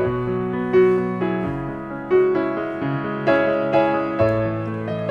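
Background music: a solo piano playing a slow, gentle melody over held bass notes, a new note or chord struck about every half second.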